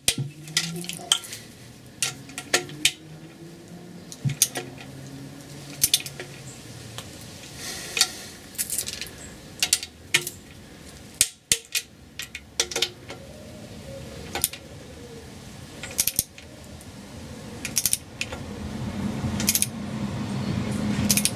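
Sharp metallic clicks of a torque wrench and socket on the differential carrier nuts as they are tightened to 30 ft-lb, coming every second or two, often in pairs. Louder handling noise builds near the end.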